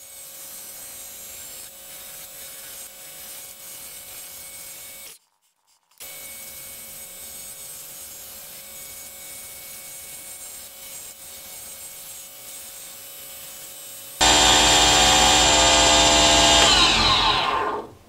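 Wood lathe running with a steady hum as a pen blank is worked. About fourteen seconds in, a much louder spell of the lathe's motor whine begins, and its pitch falls away in the last second or so as the motor spins down.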